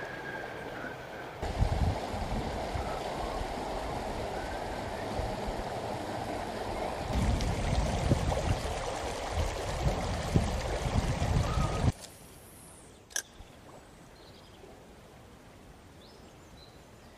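Shallow river running over stones with a few short bird chirps, the sound dropping suddenly to a much quieter background about twelve seconds in.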